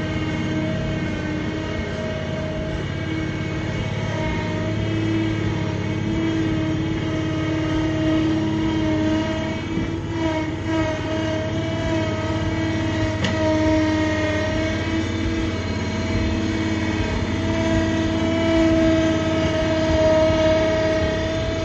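Small backhoe-loader tractor driving slowly, its engine running steadily with a steady whine on top of the engine noise.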